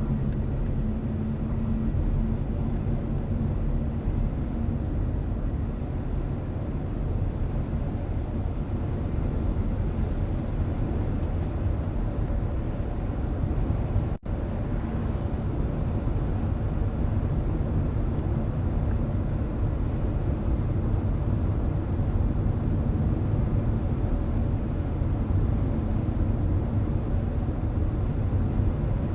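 Steady road noise inside a moving car: a low tyre rumble and engine hum. The sound drops out for an instant about halfway through.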